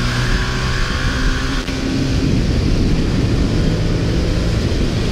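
Ducati XDiavel S's 1262 cc Testastretta L-twin running steadily under way, with a dense rushing noise. A higher hum stops about a second and a half in.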